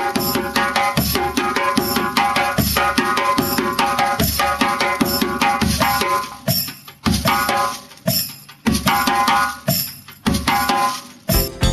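Music with hand drums and percussion playing a steady rhythm, breaking into separate accented hits with short gaps in the second half.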